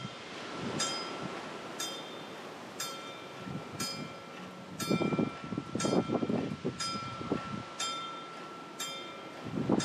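Level-crossing warning bell ringing about once a second while the crossing barriers come down, warning of an approaching train. Gusts of wind buffet the microphone, loudest about halfway through.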